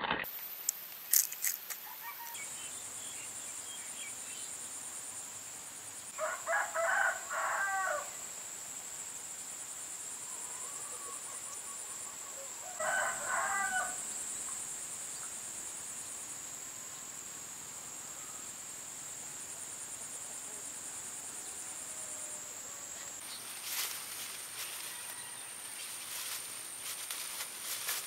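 A rooster crows twice, several seconds apart, over a steady high-pitched buzz. Near the end there is a crackly rustle of corn leaves as someone pushes through the stalks.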